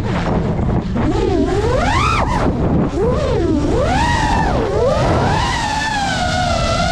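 FPV freestyle quadcopter's motors and propellers whining, the pitch swooping up and down sharply as the throttle is punched and eased through the moves, then settling into a steadier tone near the end. A low rushing of wind and prop wash runs under it.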